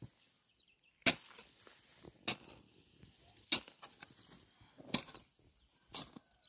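Hand hoe chopping into soil and manure in a planting hole, mixing them: a sharp strike about every second and a quarter, six in all, with loose earth rustling between.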